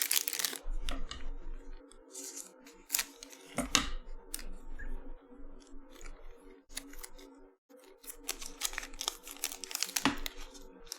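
Trading card packs being torn open and their wrappers crinkled, in irregular rustling strokes with a louder rip about four seconds in and again near the end.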